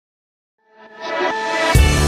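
Background music fading in from silence: sustained synth notes swell up, then a loud drum beat with heavy bass kicks in near the end.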